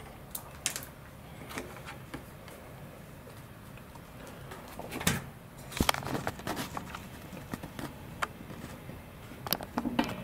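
Scattered light clicks and knocks of handling, with a louder clatter about five to six seconds in as the camera is moved over the workbench.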